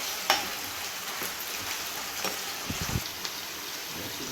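Food frying in hot oil in a pan: a steady crackling sizzle. A sharp knock comes about a third of a second in and a few duller knocks near three seconds, like a utensil against the pan.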